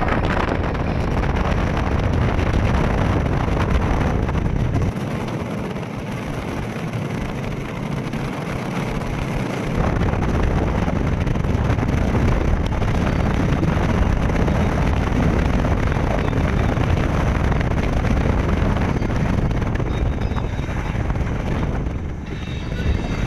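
Road and wind noise heard from inside a moving car: a steady rush with heavy wind buffeting on the microphone. The deep buffeting eases for about five seconds, starting about five seconds in, then comes back.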